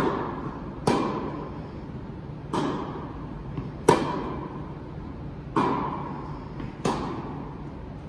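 Tennis rally: rackets striking a tennis ball back and forth, with six sharp hits or bounces about a second and a half apart, each echoing in the hall. The sharpest cracks, about one, four and seven seconds in, come from the nearer player's strokes.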